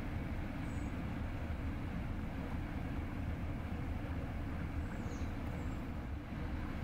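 Steady low rumble of a laden inland motor cargo vessel under way, its diesel engine running.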